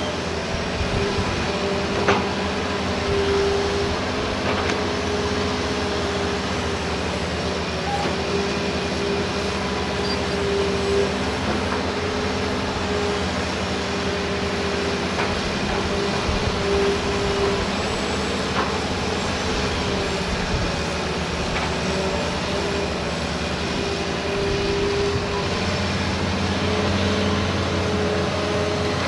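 Hitachi crawler excavator's diesel engine and hydraulics running steadily while digging, with a held whine that wavers slightly. A few faint knocks are heard.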